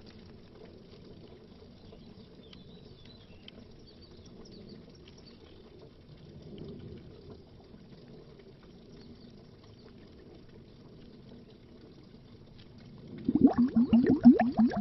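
Underwater bubbling: a long faint, low watery stretch, then a loud stream of rapid bubbles bursting out near the end.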